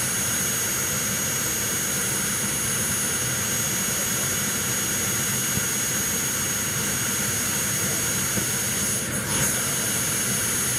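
JetCat P180 model jet turbine running steadily on the ground: a constant rushing exhaust noise with a high, steady whine.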